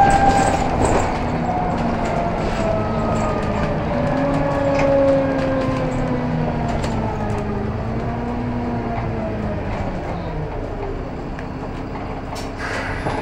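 Bus drivetrain and road noise heard from inside the saloon, with a whine that falls slowly in pitch as the bus slows, and a few light rattles and knocks from the body.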